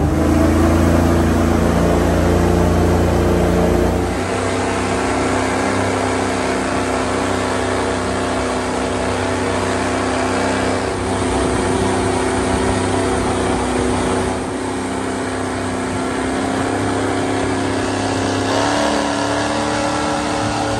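Airboat engine and propeller running, a loud steady drone. It drops back a little about four seconds in and rises slightly in pitch near the end.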